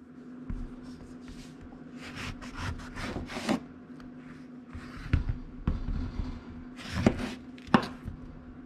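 Kitchen knife slicing through the rind and flesh of grapefruit and oranges on a wooden cutting board, with scraping strokes and several sharp knocks as the blade meets the board, over a steady low hum.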